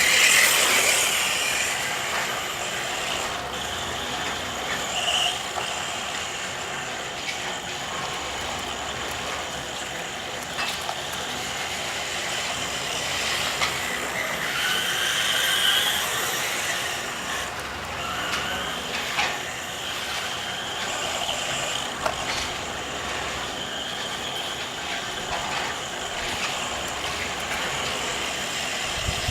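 Losi Mini 8ight RC buggy's motor and gear drivetrain whirring as it drives, with scattered clicks and rattles, picked up by a small onboard camera.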